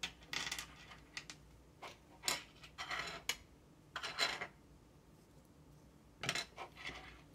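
Plastic LEGO pieces clicking and clattering as they are handled and fitted together, in irregular sharp clicks with a few short scraping rustles.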